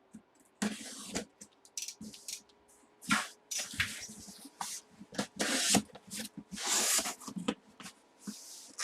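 A box being opened by hand: irregular bursts of rustling and scraping packaging, with short pauses between them.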